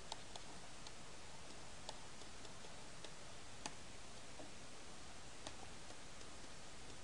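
A few faint, irregular clicks of a stylus tapping on a tablet screen during handwriting, over a steady low hiss.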